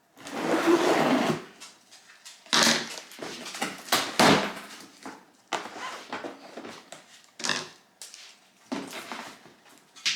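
Cardboard box and packing being handled while a wine fridge is unboxed: irregular rustling and scraping with a few knocks, loudest about a second in.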